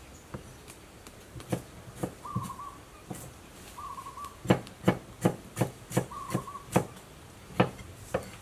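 A knife chopping on a wooden chopping block: a few single chops, then a quick run of firm chops about three a second in the middle, then two more near the end. A short warbling whistle sounds three times.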